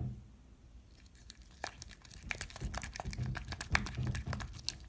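Homemade slime of face mask and salt being squeezed and stretched by hand: a run of small sticky clicks and pops, getting busier from about a second in.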